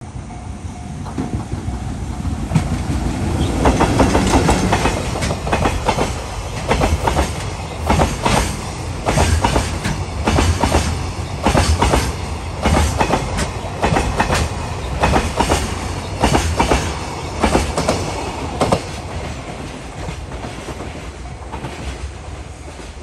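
EF64 electric locomotive hauling a container freight train past: the locomotive's run-by swells to its loudest about four seconds in, followed by a long, evenly repeating clatter of the container wagons' wheels, which fades near the end as the train moves away.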